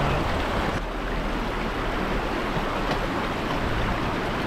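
Steady rush of water in a shallow rocky creek, with a Suzuki Vitara 4WD's engine running low underneath as it crawls through the crossing.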